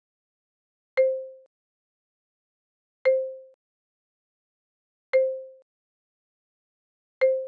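Soft electronic card-change chime, a short mid-pitched tone with a click at its start, played four times about two seconds apart, each fading within half a second; it marks each switch to the next dots flashcard. Digital silence between the chimes.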